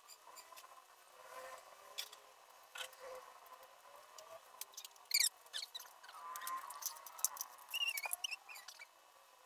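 Makeup tools and containers being handled, giving quiet scattered light clicks and taps, with a few short high squeaks about five and eight seconds in.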